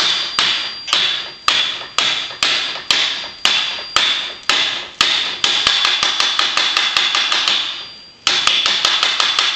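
Hammer blows on metal, driving ball bearings into a heated, expanded metal housing, each blow ringing. Heavy blows come about two a second, then turn into quicker, lighter taps with a brief pause about eight seconds in.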